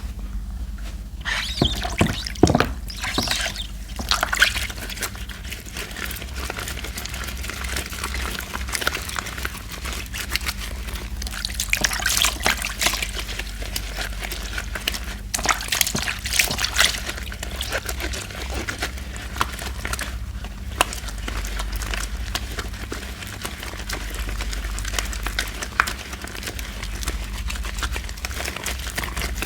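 Laundry soap being lathered with water: an uneven wet squishing and trickling, with louder splashy bursts about two seconds in, near twelve seconds and near sixteen seconds.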